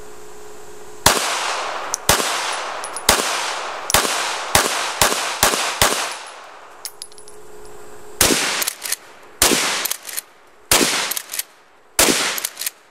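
Gunfire: about a dozen shots, roughly one a second, with a pause of about two seconds midway. Each crack trails off in a long echo. The bullets are hitting a laptop computer.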